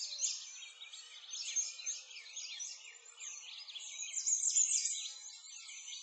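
Many small birds chirping at once, a dense stream of quick overlapping calls, loudest about four seconds in.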